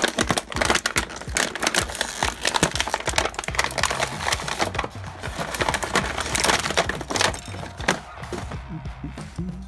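Clear plastic toy packaging crinkling and crackling in the hands, with small irregular clicks of hard plastic, as a plastic action figure is worked out of its bag.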